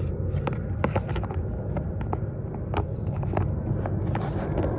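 Scattered light clicks and knocks from a charger plug and its cable being handled, over a steady low background rumble.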